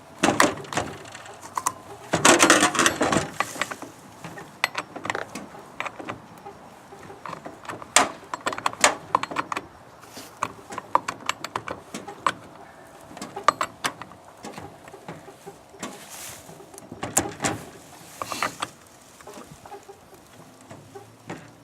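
Irregular clicks, knocks and rattles of a chainsaw being handled and adjusted by hand, with a louder spell of clatter about two seconds in and another near the end.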